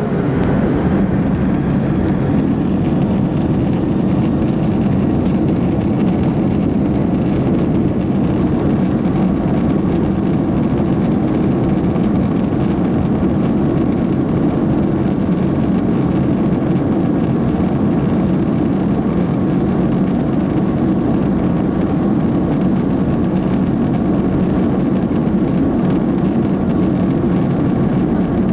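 Jet airliner cabin noise during a fast runway roll: the engines running at high thrust over the rumble of the wheels on the runway, heard through the cabin. It is a loud, steady roar that begins abruptly and does not change in pitch.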